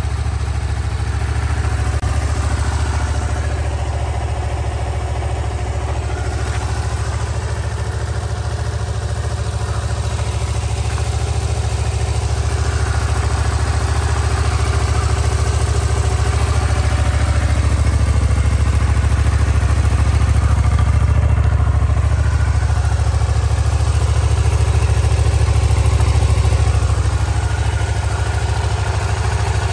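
Honda VTR250's 250 cc V-twin engine idling steadily, with no revving.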